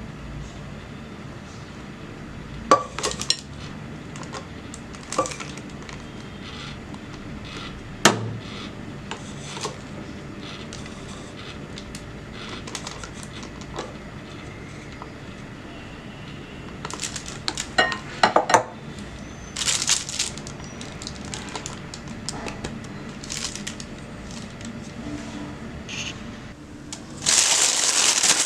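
A spoon clinks and taps against a bowl and glass as batter is scooped into a piping bag, in scattered sharp knocks with quiet stretches between. Near the end comes a loud plastic crinkling from the piping bag being handled.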